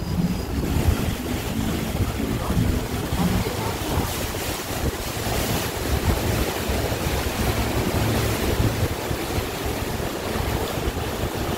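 Wind buffeting the microphone over the steady rush of water along the hull of a river cruise boat under way, a continuous low rumbling noise.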